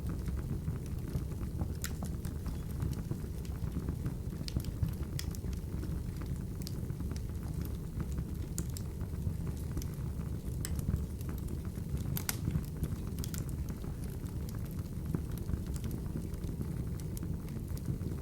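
Open wood fire burning in a fireplace: a steady low rumble of the flames with scattered sharp crackles and pops from the burning logs.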